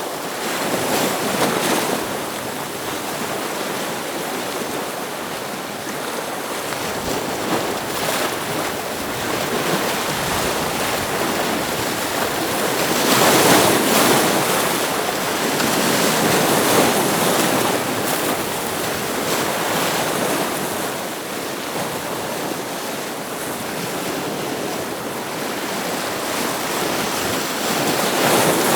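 Ocean waves breaking against rocks: a continuous wash of surf that swells and recedes, loudest in a surge about halfway through.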